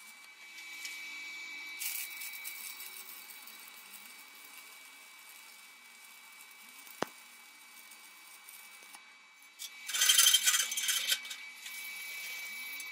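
MIG welding arc sizzling steadily on steel pipe. About ten seconds in comes a louder, brief burst of metallic scraping and clinking at the weld.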